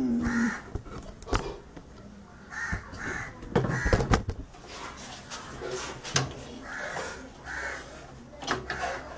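Crows cawing over and over in short calls. Sharp clicks and knocks come from cables and plugs being handled inside a metal PC case, the loudest a cluster of knocks about four seconds in.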